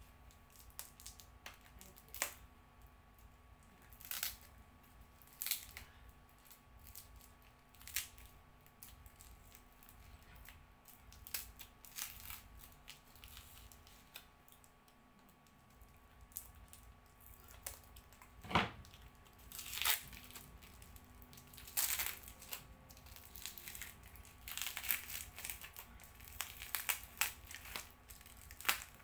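Packing material crinkled and torn by hand while a parcel is unwrapped: irregular rustles and crackles, busier in the last third, with one sharper knock about two-thirds of the way through.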